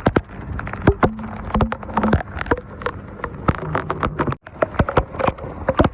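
Heavy rain, with dense, irregular raindrops tapping sharply on a surface close by over a low rumble.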